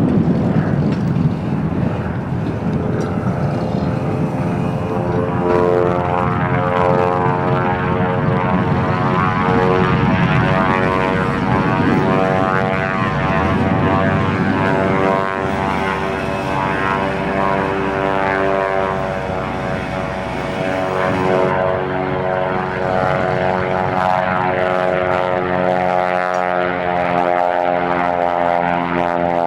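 Cessna Agwagon agricultural plane's piston engine and propeller droning steadily in flight, the pitch drifting a little as it manoeuvres.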